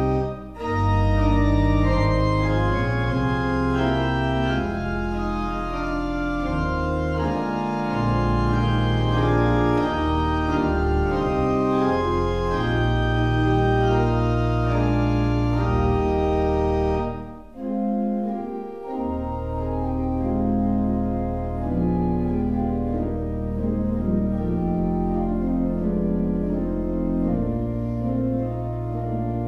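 Organ playing slow, sustained chords over long, deep bass notes. It pauses briefly just after the start and again for about a second around seventeen seconds in.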